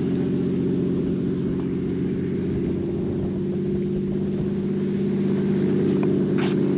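Sightseeing helicopter running close by, a steady low hum of engine and rotor that holds one pitch.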